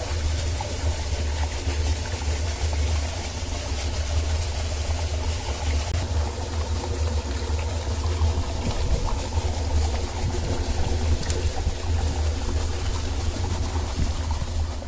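A motor running with a steady low hum, over a continuous wash of running water.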